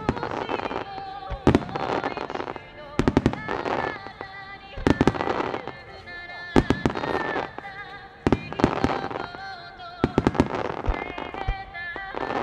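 Aerial firework shells bursting one after another, a sharp bang roughly every one and a half seconds, over music.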